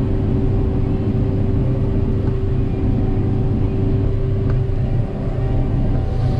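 Hillside-leveling combine harvester running steadily at working speed, heard from inside the cab, with its grain unloading auger engaged: a constant low machine drone with a steady hum riding on top.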